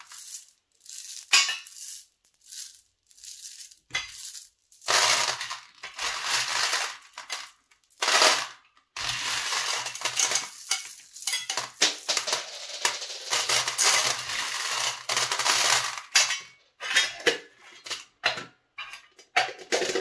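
Candy-coated chocolate candies (M&M's) clattering against each other and the metal tins in irregular bursts as handfuls are scooped and let fall, with short pauses between. Near the end the tin lids are set on.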